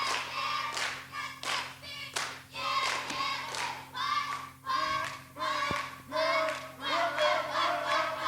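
Youth choir voices singing in rhythm over hand clapping, about two claps a second, with a steady low electrical hum underneath.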